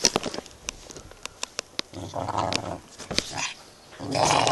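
Small dog growling in bouts while guarding her chew bone: short low growls about two and three seconds in, then a longer, louder growl starting near the end. A few sharp clicks come first.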